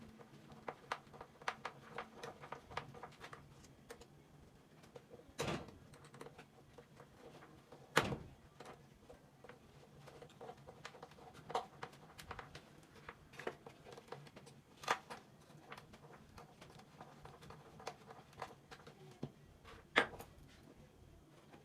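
Irregular light clicks and knocks of small hard objects being handled, with a few louder knocks about five and a half, eight, fifteen and twenty seconds in.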